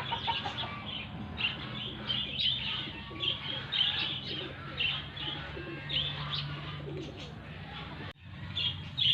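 Birds chirping over and over in short, high calls, with some cooing among them and a steady low hum underneath. The sound drops out for a moment about eight seconds in.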